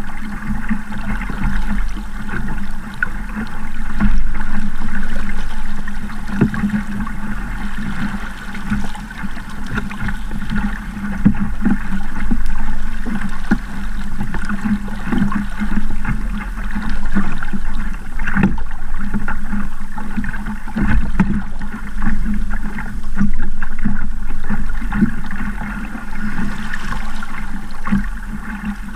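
Sabot sailing dinghy under way in choppy water: a steady rush of water along the hull, with frequent slaps of waves against it.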